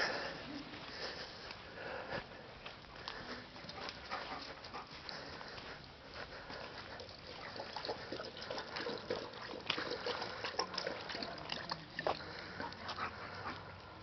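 German Shepherd dog sniffing and moving about, with irregular small clicks and scuffs throughout.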